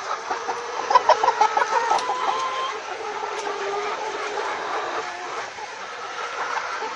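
A flock of chickens clucking and calling together in a steady din, with a burst of loud, rapid clucks about a second in.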